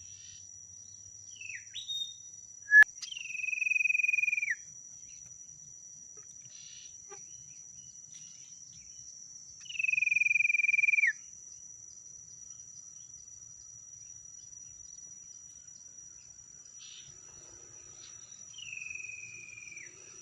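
Three long, pure whistled notes, each held level for about a second and a half and dipping at the end, with a few short rising chirps and a sharp click near the first one. A thin, steady high tone runs underneath.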